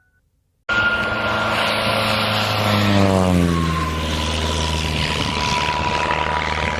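Propeller-driven airplane flying past: its engine and propeller note starts abruptly under a second in and slides down in pitch about three seconds in as it goes by.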